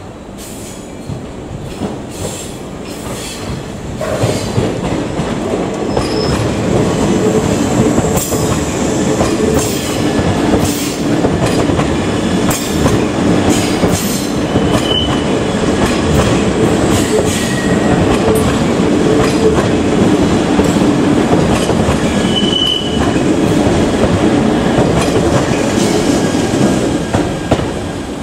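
A 381 series limited express electric train runs past close by, a steady rumble of wheels and motors that swells about four seconds in. Wheels click over the rail joints throughout, and two brief high squeals come from the wheels.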